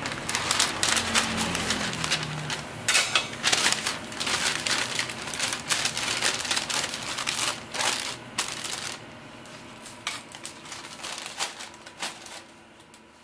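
Paper sandwich sleeve crinkling and rustling as a toasted egg sandwich is pushed into it and the paper is folded around it, in repeated crackly bursts that thin out and fade away near the end.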